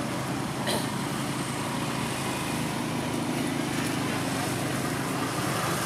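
Steady hum of an engine running, with a single short click about two-thirds of a second in.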